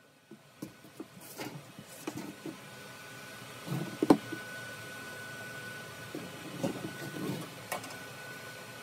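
Workshop handling noises: scattered knocks and clicks of tools and metal parts, with one sharp knock about four seconds in, over a faint steady high whine.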